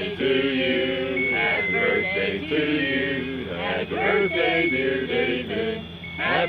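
Slow chanting by voice, with long held notes that shift pitch every half second or so and continue without pause.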